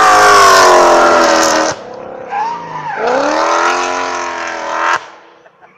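Race car engine at full throttle as the car passes at speed, its pitch sliding down slightly as it goes by. It lets off sharply a little under two seconds in, blips briefly, then pulls hard again from about three seconds in, rising steadily in pitch before dropping away abruptly about five seconds in.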